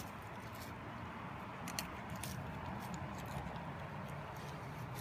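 Faint wet squelching and a few small clicks as a hand pulls open the slit belly of a gutted chinook salmon, over a steady background hiss.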